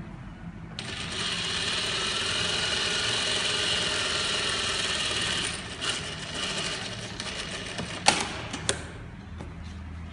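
Single-needle industrial lockstitch sewing machine stitching a pintuck fold in fabric. It starts about a second in, runs steadily at speed for about five seconds, then drops away. Two sharp clicks follow a couple of seconds later.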